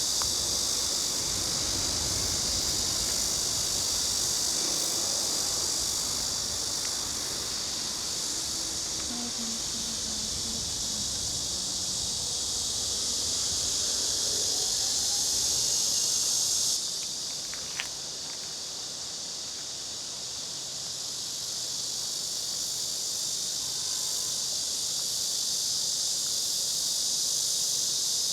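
A steady, dense, high-pitched chorus of summer insects in park trees. It drops suddenly in level about two-thirds of the way through, with a brief click, then slowly swells back.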